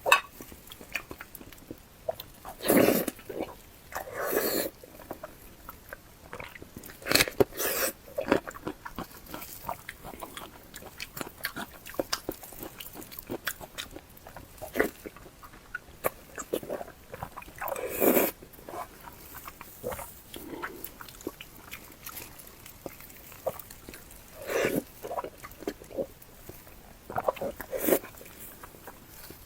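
Close-miked wet chewing and lip-smacking of someone eating fatty pork, with louder slurp-like bursts at irregular moments every few seconds.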